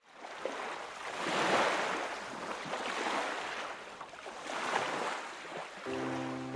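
Ocean surf: waves washing in with a rushing sound that swells twice. Piano music comes in just before the end.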